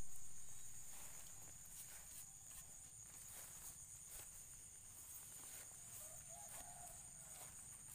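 Night insect chorus: a steady high-pitched trill, with scattered faint clicks and rustles in the grass. A brief low warbling call comes about six seconds in, and a louder sound dies away in the first second.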